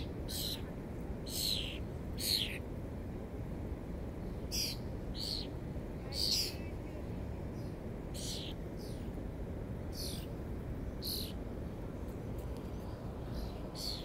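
Northern cardinal giving sharp chip calls: about a dozen short, high notes that each drop quickly in pitch, irregularly spaced roughly a second apart. A steady low rumble runs beneath them.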